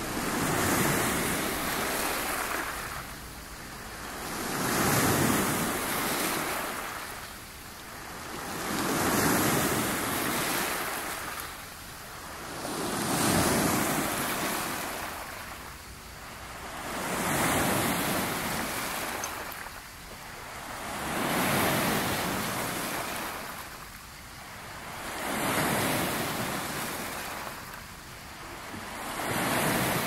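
Small lake waves breaking and washing up over a pebble shore, surging and ebbing in a regular rhythm about every four seconds.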